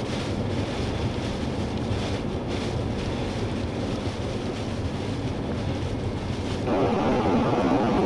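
Strong blizzard wind rushing and buffeting the microphone over a low steady rumble. About two-thirds of the way through it jumps suddenly louder and harsher.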